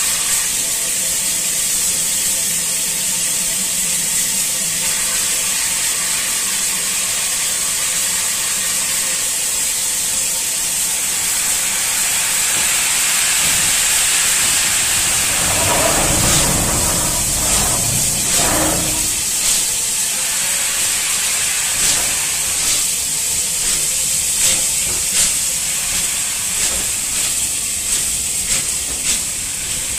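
Bulleid West Country class steam locomotive 34007 Wadebridge hissing steadily with escaping steam, with a louder surge of steam about halfway through as it starts off. Its exhaust beats then begin slowly and quicken toward the end as it pulls away.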